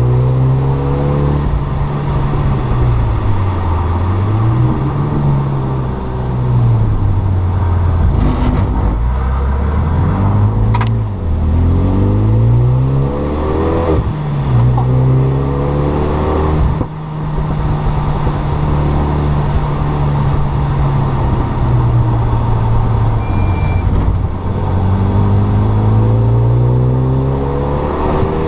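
Renault Mégane 3 RS's turbocharged 2.0-litre four-cylinder engine pulling hard, its pitch climbing over a few seconds and then dropping, again and again through the gears.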